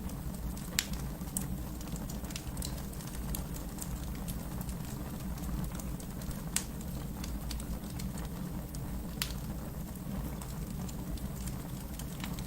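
Wood fire burning in a fireplace: a steady low rumble of flames with irregular crackles and pops of burning logs, a few sharper pops standing out.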